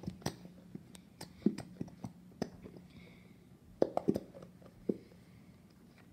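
Plastic glue bottle being squeezed hard and handled over a plastic tub: irregular sharp clicks and pops, bunched together about four seconds in.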